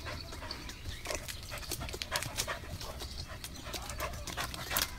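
A dog panting hard, in quick, irregular breaths, as it chases a squirrel around a tree.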